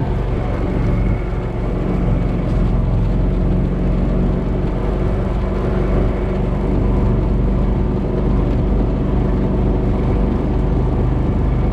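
Four-wheeler (ATV) engine running steadily while riding.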